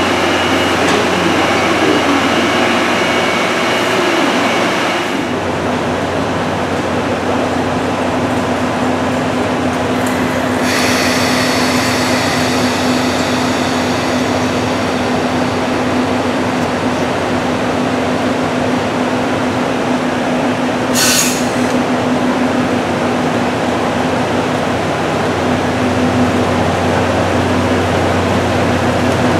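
EF65 electric locomotive moving slowly along a station platform at the head of a train of 14-series coaches, with a steady electric hum. Brief high-pitched sounds come around 11 seconds in, and a short, sharp hiss about 21 seconds in.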